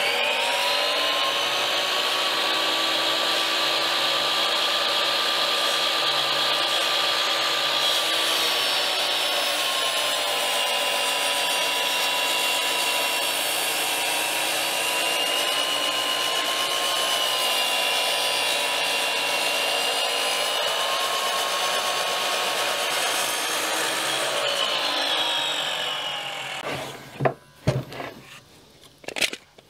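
DeWalt sliding compound miter saw running and cutting through a 3x6 timber brace, trimming it back toward a marked line. Its motor whine sags in pitch under load during the cut, and near the end the saw winds down.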